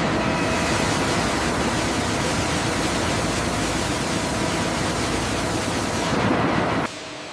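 Factory machinery running: a loud, steady, dense hiss with faint steady hum tones under it, cutting off abruptly near the end.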